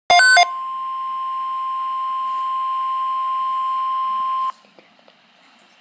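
A short, loud burst of stepped electronic tones, then the weather radio alert tone: one steady beep-like tone held for about four seconds over faint radio hiss, cutting off suddenly. The tone signals that an emergency weather message follows.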